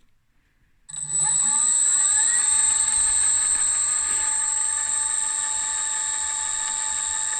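Mini lathe's brushless outrunner motor (Turnigy SK3 6374-149KV, belt drive) starting about a second in: a rising whine as it spins up, then running steadily with a high-pitched whine.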